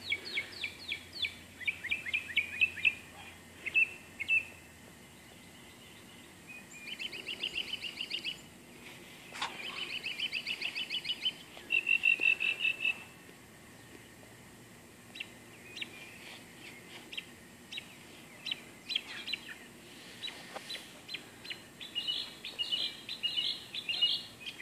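Songbirds singing: several rapid trills of high, quickly repeated chirping notes, with scattered single chirps between them.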